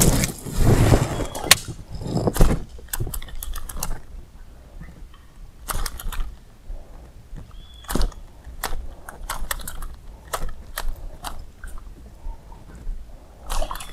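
Sharp, irregular clicks and taps, more than a dozen scattered through, from rod-and-reel work while an artificial lure is twitched and retrieved across the water.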